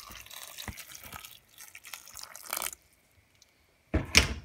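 Boiling water poured into a steel pot of raw pumpkin cubes: a splashing, hissing pour lasting about two and a half seconds, then stopping. A loud knock follows near the end.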